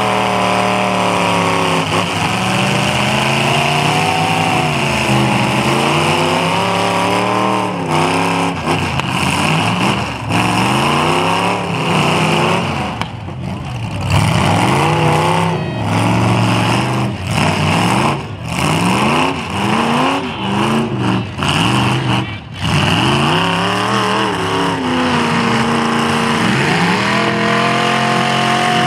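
Demolition derby cars' engines revving hard, their pitch rising and falling over and over, with a few brief dips in the middle.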